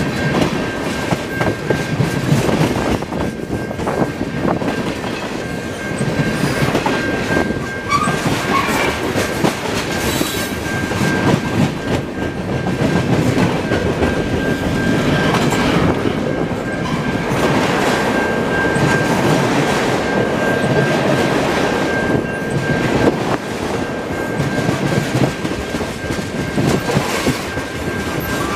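Freight train of tank cars and covered hopper cars rolling past at close range, its wheels clattering on the rails, with a thin steady high-pitched whine running through.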